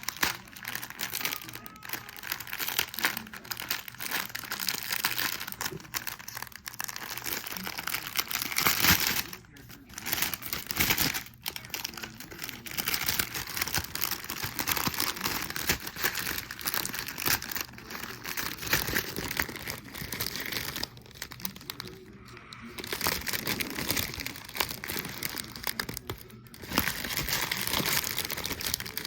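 Plastic packaging crinkling and rustling as the small bags of diamond painting drills are handled and sorted, with a few brief pauses.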